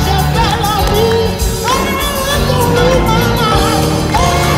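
Live gospel choir singing with an amplified band and a steady beat, a lead voice with vibrato standing out above the choir.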